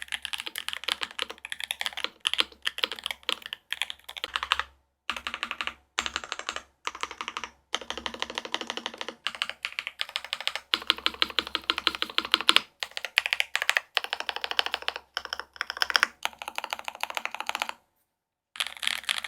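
Fast typing on a gasket-mounted Rama U80-A mechanical keyboard with factory hand-lubed Vertex V1 switches, an aluminium plate and GMK keycaps: rapid clacks in runs broken by short pauses, stopping for about a second near the end.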